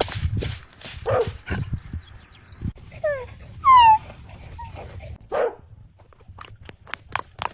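Dog barking and yelping: a few short barks, then high yelps that fall in pitch about three to four seconds in, the loudest a longer falling yelp, then another bark and a few light taps near the end.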